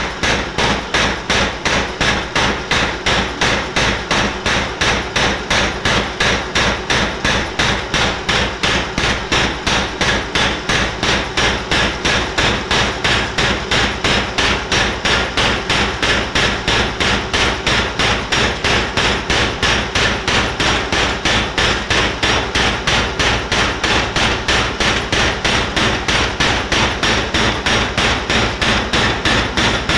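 Homemade power hammer pounding a red-hot metal bar in swage dies with a steady run of blows, about two to three a second. It is crimping the hot bar into large bell-shaped decorative elements.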